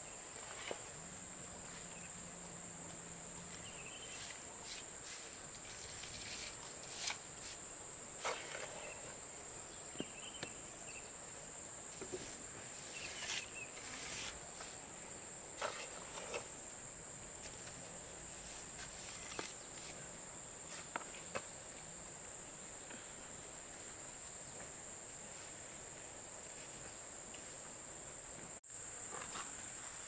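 Steady high-pitched drone of insects, with irregular scrapes and knocks of a trowel scooping mortar from a plastic bucket and working on concrete blocks.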